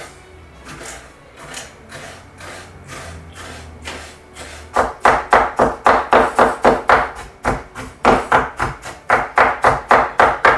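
Kitchen knife chopping on a cutting board: softer strokes at first, then, about five seconds in, loud even chops about three a second.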